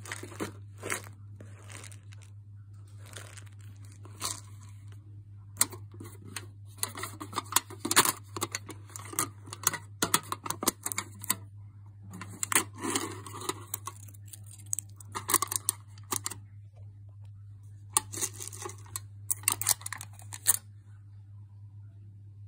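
Foil seal of a snack jar being punctured and torn open by hand, in irregular bursts of tearing and crinkling that stop about two seconds before the end.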